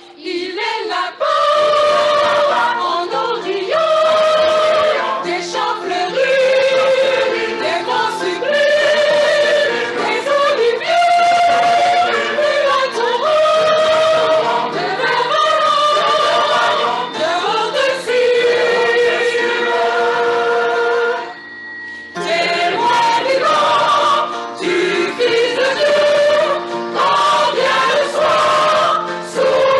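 Mixed choir singing a hymn in several parts, breaking off for about a second roughly two-thirds of the way through and then going on.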